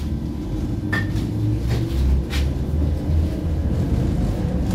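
Tram running on its rails, heard from inside the car: a steady low rumble with a few sharp knocks a little under a second apart and a brief squeak about a second in.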